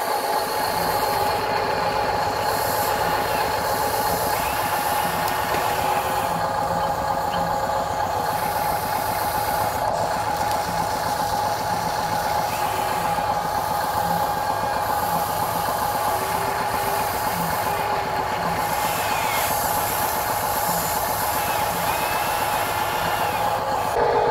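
Electric motors and gears of a scale RC excavator working as it digs and swings its bucket over a dump truck: a steady motor whine with small shifts in pitch as the arm moves.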